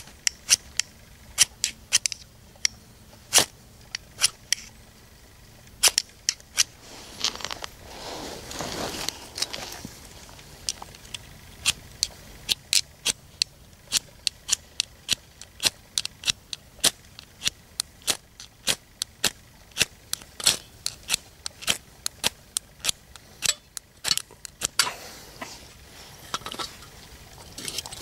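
Homemade firesteel (ferrocerium rod) scraped again and again, short sharp rasps coming fast and unevenly, with a longer rough stretch about eight seconds in: sparks being thrown onto magnesium shavings to light Esbit fuel tablets.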